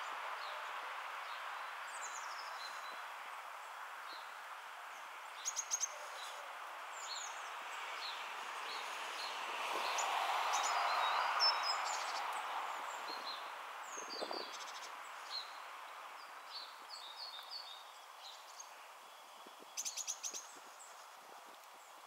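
Steady outdoor background rush that swells to its loudest about halfway through and then eases off, with many short, high bird chirps scattered throughout. Two quick runs of clicks come about a quarter of the way in and near the end.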